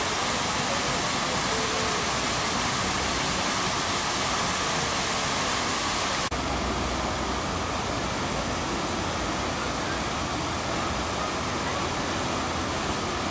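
Fountain water falling in many sheets into a stone basin, a steady splashing rush. About six seconds in it changes abruptly to a second fountain's cascades and jet, with a little less hiss and a bit more low rumble.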